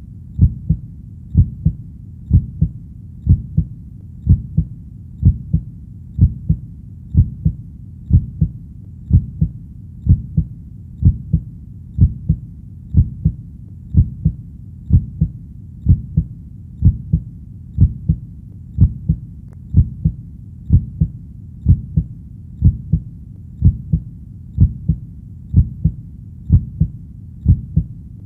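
Human heartbeat beating steadily at about one beat a second, each beat a low double thump (lub-dub), with a low steady hum between beats.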